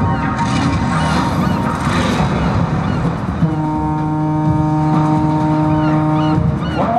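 A ship's horn sound effect from a light show's soundtrack, played over loudspeakers: one long, steady, deep blast that starts about halfway through, holds for about three seconds and then stops, after a stretch of the show's music.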